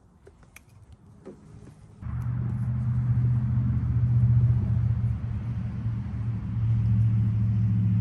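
A few faint clicks, then an engine starts running steadily about two seconds in, a loud, low hum.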